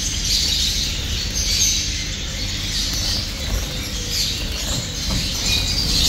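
Many small caged finches chirping and twittering together in a dense, continuous chatter, over a steady low rumble.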